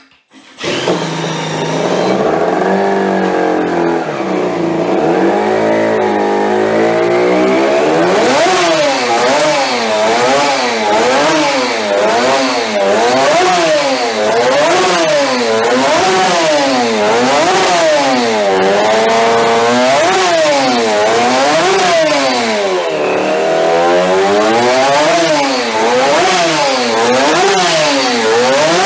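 Custom 3D-printed 100cc fuel-injected two-stroke race engine running and being revved up and down over and over. It comes in suddenly less than a second in, with uneven revs at first and then regular blips about once a second.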